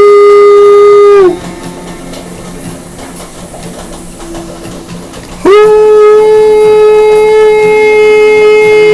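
A shofar (ram's horn) is blown in long, steady, loud blasts. One blast ends about a second in, and another starts a little over halfway through and is held.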